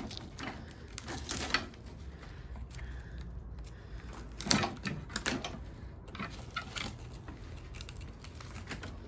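Intermittent clicks, scrapes and rustles of hand work as copper windings are pulled off a welder's transformer coil, over a low steady hum, with the loudest handling noises about halfway through.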